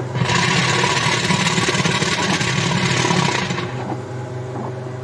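Direct-to-film inkjet printer printing: the print-head carriage makes one rapid, finely ticking mechanical pass lasting about three and a half seconds, then stops, leaving a steady low machine hum.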